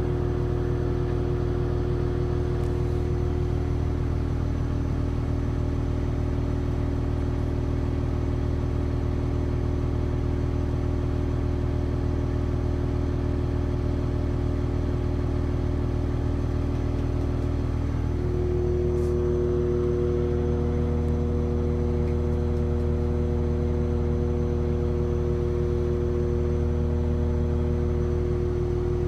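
Cummins QSL9 inline-six marine diesel running steadily at low idle, about 700 rpm on its low-speed governor. A little past halfway its note shifts and gets slightly louder, then holds steady again.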